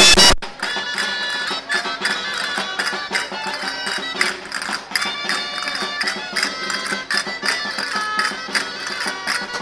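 Loud folk piping stops abruptly less than half a second in. Quieter traditional folk music follows, with held melody notes over a quick, steady percussion beat.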